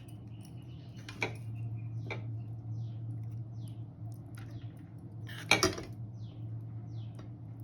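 A metal spoon clinks against a cooking pan a few times, with the loudest clink about five and a half seconds in. A steady low hum runs underneath.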